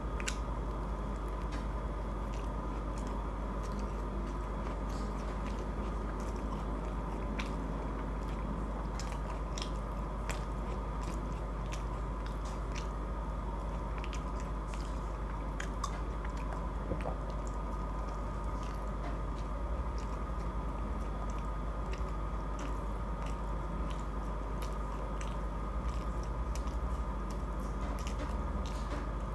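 Close-miked chewing and biting of a spicy chicken burger, many small mouth clicks scattered throughout, over a steady low hum.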